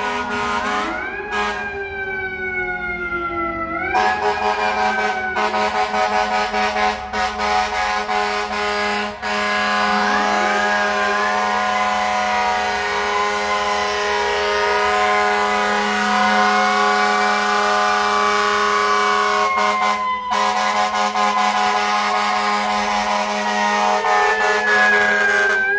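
Fire apparatus responding: air horns blasting almost without a break over sirens that rise and fall in slow wails.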